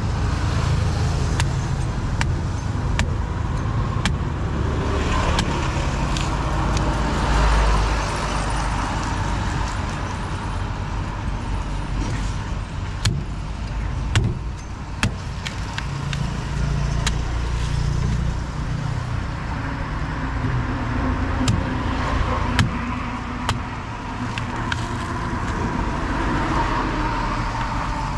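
Steady road traffic rumble from passing cars and motorbikes, with sharp knocks now and then from a large knife chopping into palmyra palm fruits.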